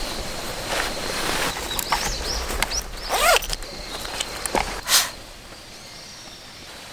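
Nylon tent floor and bedding rustling and swishing as a sleeping bag and blanket are spread and smoothed out by hand, with a sharp, loud rustle about five seconds in. A few short chirps sound faintly around the middle.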